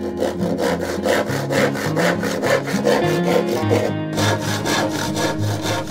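Handsaw crosscutting a laminated hardwood board, quick even rasping strokes with a short break about four seconds in. Acoustic guitar music plays underneath.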